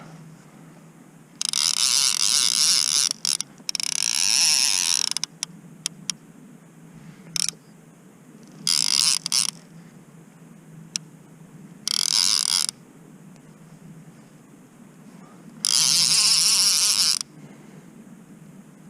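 Fishing reel being wound in six short spells of mechanical rattling, each about half a second to two seconds long, with pauses between.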